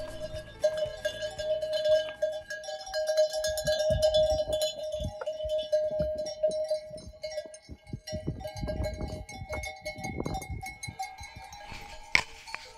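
Many small bells clinking and ringing at different pitches on a flock of sheep as it walks and grazes past.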